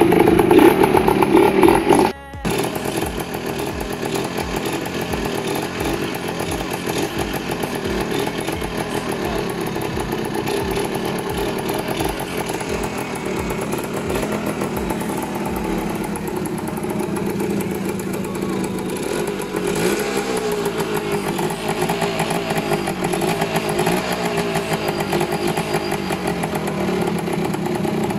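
Yamaha RS 100's two-stroke single-cylinder engine running, its revs rising and falling at times. It is louder for the first two seconds and breaks off briefly at about two seconds in.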